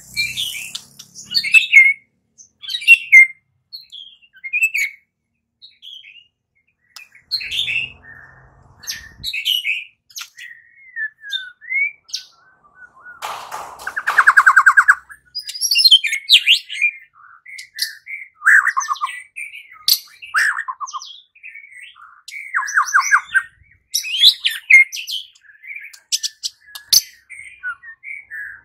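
White-rumped shama singing: a run of short, varied whistled and chirping phrases, with a longer harsh rattle about halfway through and several shorter rattles after it.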